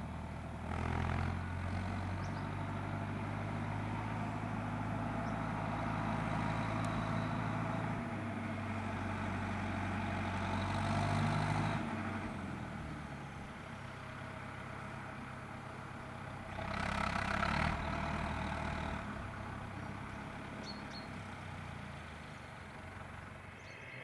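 Fendt tractor's diesel engine running as it tows a trailer past, its note shifting in pitch, loudest in the first half and weaker after about twelve seconds. A louder rushing swell comes about a second in and again around seventeen seconds.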